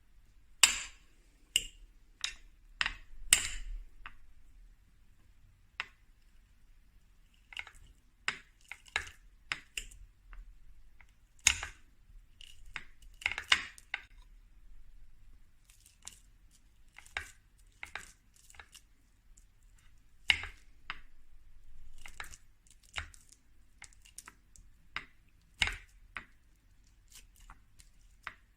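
Kitchen utensils and dishes being handled during food preparation: irregular sharp taps, clicks and knocks with short gaps between them.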